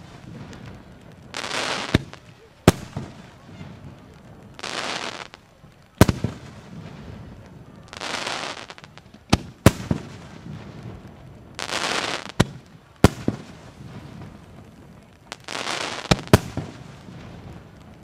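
Japanese aerial firework shells bursting overhead: about ten sharp bangs, several in close pairs, with short hissing rushes leading into some of them.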